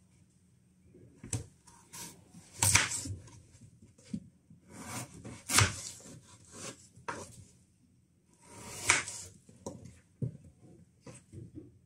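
Kitchen knife cutting through peeled raw potatoes on a wooden cutting board, the blade knocking the board as each cut finishes. Three louder cuts come about three seconds apart, with lighter taps and knocks between them.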